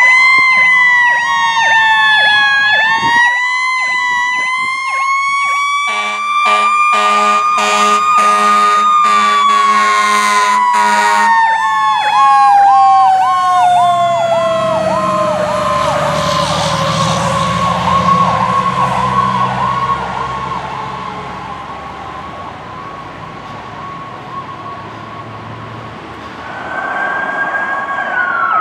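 Fire rescue squad's sirens: a mechanical siren wails, rising and falling, over a steady electronic siren tone. Repeated air-horn blasts come in between about six and eleven seconds in. The mechanical siren then winds slowly down as the truck passes, and another siren starts near the end.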